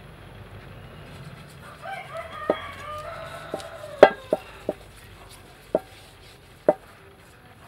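A rooster crowing once, about two seconds in, for over a second. About seven sharp knocks follow, the loudest about four seconds in.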